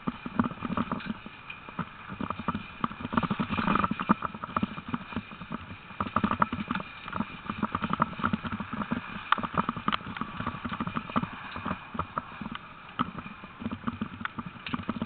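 A team of sled dogs trotting on a gravel track, pulling a wheeled training rig: a quick, irregular patter of paws on gravel mixed with the rig rattling over the stones. A faint steady high tone runs underneath.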